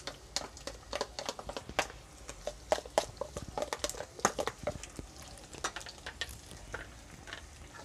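Pork pieces sautéing in a stainless steel pot, sizzling with many irregular crackles and pops, mixed with light clicks of a spoon and pepper container against the pot.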